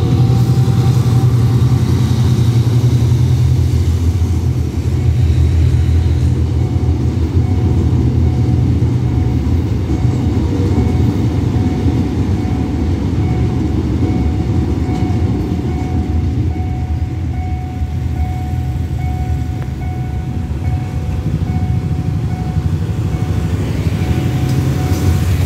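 Diesel-hauled ballast train rumbling across a road level crossing, a steady heavy low rumble throughout. A faint repeating tone from the crossing's warning signal sounds over it.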